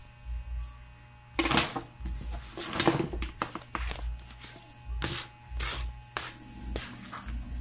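Handling noise on a workbench: a flexible plastic sheet being lifted and shifted, with irregular rustles, clicks and taps of small tools and parts against the bench, over a faint steady hum.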